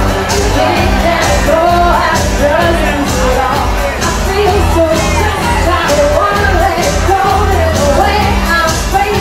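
Live pop-rock band playing loudly: a singer over keyboards, bass and drums, with a steady beat.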